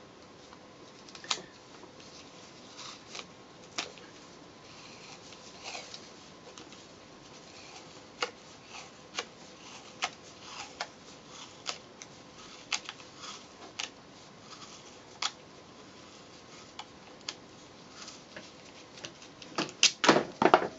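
Masking tape being pulled off the roll and wrapped around a pole section: scattered short crackles and clicks, with a quick run of louder snaps near the end.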